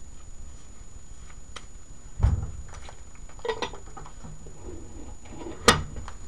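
Items being handled at close range: a dull thump about two seconds in, a few light clicks and clinks, and a sharp click near the end.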